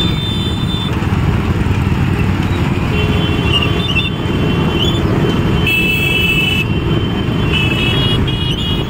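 Many motorcycle and scooter engines running together in a slow procession, with horns honking several times: a few short toots, one held for about a second around six seconds in, and a cluster of short ones near the end.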